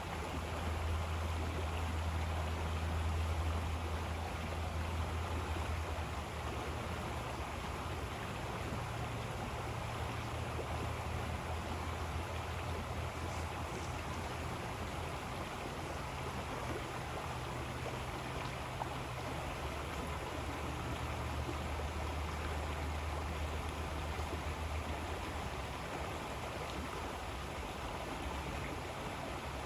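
River water flowing steadily over its bed, a continuous rushing noise with a low rumble underneath.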